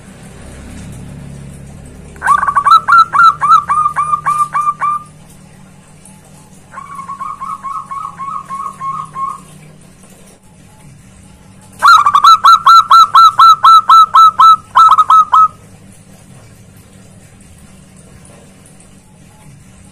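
Zebra dove (perkutut) cooing: three bouts of rapid, repeated short notes, about four a second, the middle bout quieter than the other two.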